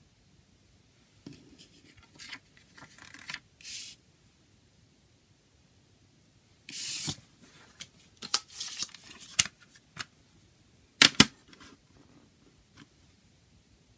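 A paper CD booklet rustling and sliding as it is handled and turned over. Near the end come two sharp, loud clicks from the plastic jewel case being snapped shut.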